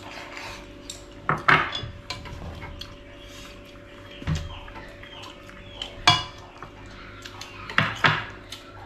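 Tableware clinking and scraping at a meal: ceramic bowls, chopsticks and a spoon knocking against dishes and a large aluminium rice pot. Sharp clinks come about a second and a half in, around six seconds and near the end, with a duller knock in the middle as rice is scooped from the pot, over a faint steady hum.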